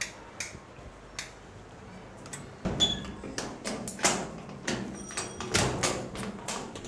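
A padlock and metal door hasp being handled: a run of sharp metallic clicks, knocks and rattles, more frequent in the second half.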